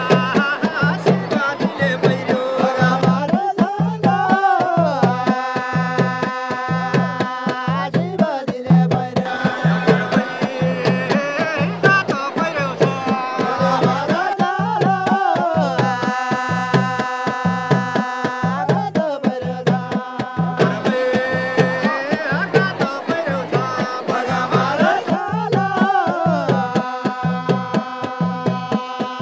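Hudka hourglass drums beaten in a fast, steady rhythm, with voices singing a melody that repeats in phrases a few seconds apart: Hudkeli folk song music of far-western Nepal.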